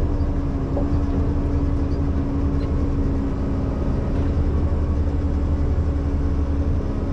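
Ponsse Buffalo forwarder's diesel engine running steadily, heard from inside the cab: a low rumble with a steady hum held above it.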